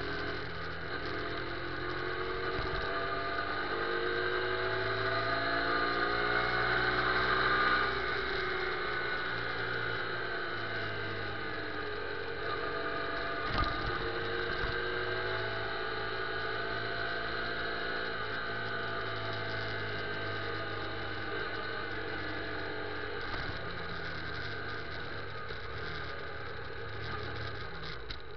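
Motorcycle engine pulling up through the revs for about eight seconds, then easing off and running steadily at low speed, with one sharp knock about halfway through.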